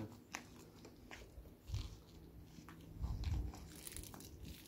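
Faint footsteps scuffing and crunching on a gritty concrete slab, with a few low thumps about two and three seconds in.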